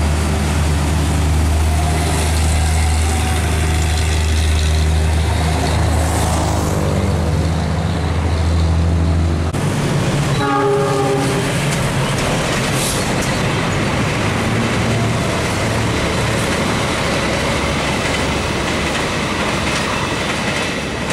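Mitsubishi Fuso truck's diesel engine running with a deep steady drone for the first half. After a cut, a train horn sounds about ten seconds in, and a passenger train then rolls past with steady wheel-on-rail noise.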